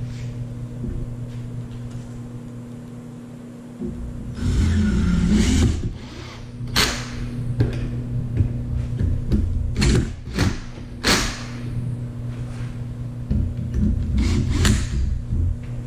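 Cordless drill/driver running in short spurts, driving fasteners into a wooden block clamped in a vise. There is one longer whirr about four seconds in, then a string of sharp knocks and clicks from the tool and the wood.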